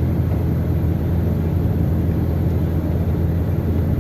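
Heavy truck diesel engine running steadily under load, a constant low drone.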